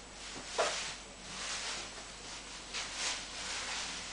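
A thin stream of tap water running into a sink, with a few louder splashes as a kitten paws at it, the sharpest about half a second in and another around three seconds.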